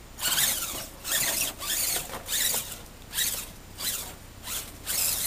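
Electric drive motor and gearbox of an Axial SCX10 RC crawler truck whining in about eight short throttle bursts, the pitch sweeping with each blip. The truck is bound up on the rocks, so the drivetrain strains and stalls instead of moving.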